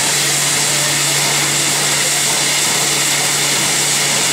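Safety valves of rebuilt Bulleid Light Pacific steam locomotive 34046 Braunton blowing off: a loud, steady hiss of steam with a low hum beneath. Blowing off is the sign that the boiler is at full working pressure while the engine stands.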